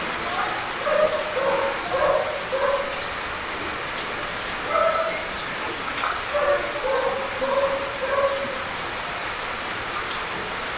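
Steady, gentle rain falling, with a dog barking in runs of four or five barks, once about a second in and again about six seconds in. A few high bird chirps come in around the middle.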